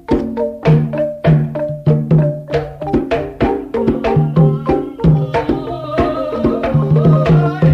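Calung Banyumasan ensemble playing: bamboo calung xylophones struck in a quick, steady run of ringing notes, with a hand drum keeping time. More held, higher notes join about five seconds in.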